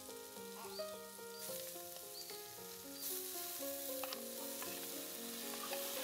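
Onions and green chillies sizzling as they fry in a metal wok, with a stirring spoon clicking against the pan now and then. The sizzle eases about a second and a half in and swells again halfway through. Soft instrumental music plays underneath.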